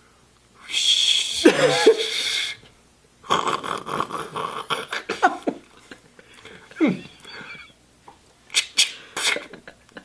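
A person imitating sounds with his voice: long breathy hisses like running shower water, then a buzzing hiss meant as a hairdryer, broken by short squeaky vocal slides and mouth clicks.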